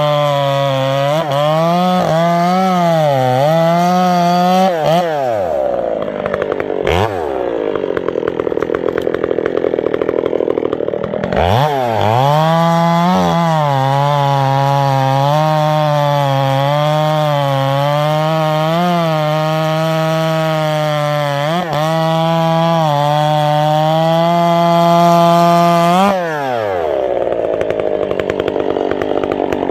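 Husqvarna chainsaw with a hand-filed square-ground chain cutting through a stump under load, its engine pitch wavering as the chain bites. About five seconds in it drops to idle. It revs back into the cut about eleven seconds in, runs until about twenty-six seconds in, then falls back to idle.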